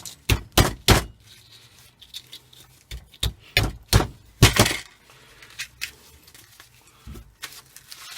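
Hand snips cutting and snapping through scrap metal: a run of sharp cracks and clinks, several in quick succession in the first second, a louder bunch around the middle, and a few fainter ones near the end.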